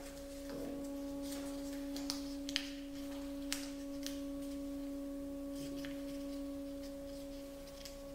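A steady pure held tone, with a few sharp crackles of origami paper being creased between the fingers, mostly between about two and four seconds in.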